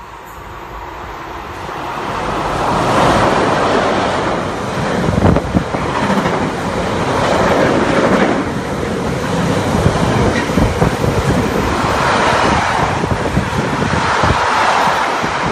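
Container freight train approaching and passing through at speed. The noise builds over the first few seconds to a loud, steady rumble of steel wheels on rail, with repeated clattering as the wagons go by.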